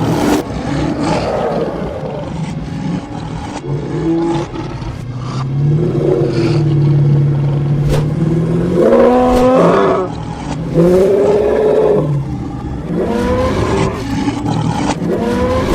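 Animated animal sound effects: big-cat roaring mixed with other animal calls. A long, low, steady call comes in the middle, followed by higher wavering calls.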